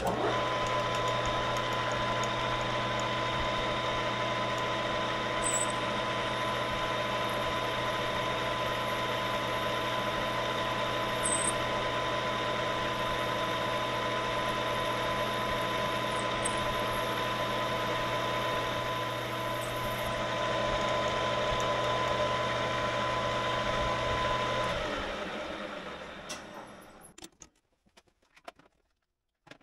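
Metal lathe running steadily with a motor hum and a thin high whine, then switched off about 25 seconds in and spinning down to a stop.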